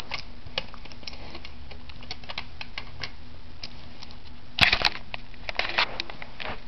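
Light, irregular clicks and rattles of small toy cars being picked up and handled, with a louder burst of clatter about two-thirds of the way through.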